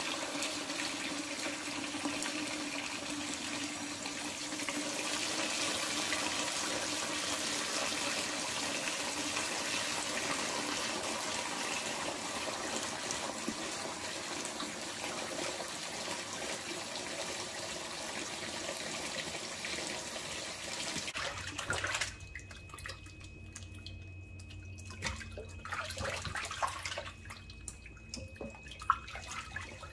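Kitchen faucet running into a stainless steel sink, the stream splashing over tomatillos being rinsed. About 22 seconds in the flow stops abruptly, leaving quieter sloshing and irregular splashes as hands rub the tomatillos in the standing water.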